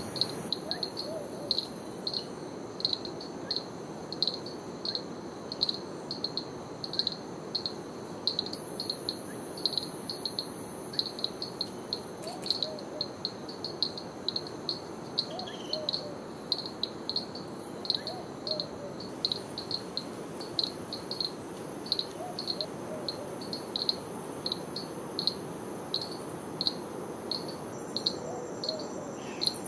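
A rainforest insect chirping steadily, short high chirps about twice a second, over the steady rush of water from a stream or waterfall. A few faint lower calls come in now and then.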